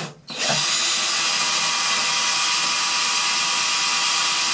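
Cordless drill giving a short burst, then running steadily, drilling a hole through the cabinet's birch wood so the screws won't split it.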